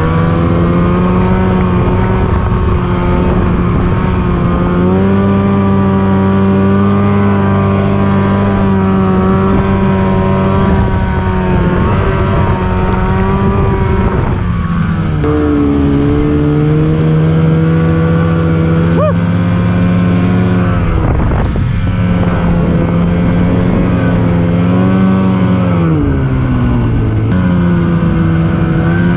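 Snowmobile engine running hard under throttle while riding through snow. The engine note holds steady for stretches and drops and climbs back several times as the throttle is eased and reapplied.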